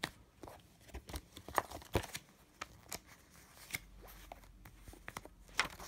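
A plastic VHS case and its paper insert being handled: scattered light clicks, taps and paper rustles, with a quick cluster of clicks near the end.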